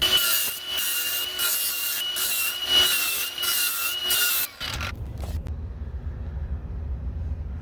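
Sheet-metal water-heater vent pipe scraping as it is pushed and twisted into the next section, a continuous metal-on-metal rasp with a high squeal that stops suddenly about four and a half seconds in.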